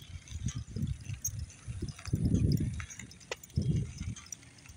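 Wind buffeting the phone's microphone in uneven low gusts from the bicycle's motion, loudest about two seconds in, with a few faint sharp clicks.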